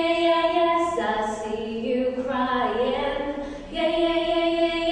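A voice singing long held notes with little or no accompaniment, stepping to a new pitch about a second in and sliding down before settling on a new held note near the end.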